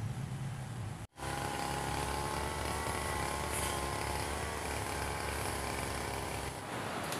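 Small two-stroke engine of a brush cutter running steadily at high speed, a high whine with a slight wobble in pitch; it starts abruptly about a second in and cuts off shortly before the end.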